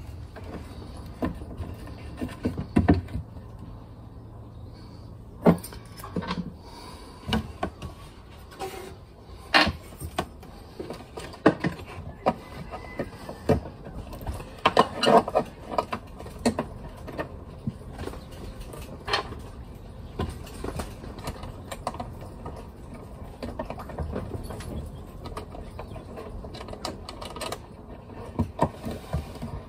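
Irregular light clicks and knocks of hands working at a panel-mounted battery monitor, pressing its buttons and handling the unit. A low hum underneath stops about five seconds in.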